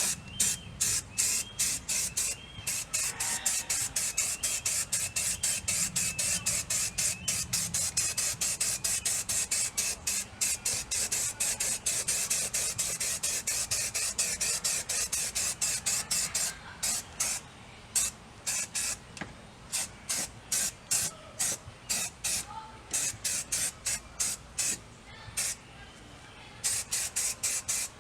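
Aerosol can of undercoating spraying in rapid short bursts, about three to four a second, with a few brief pauses in the second half.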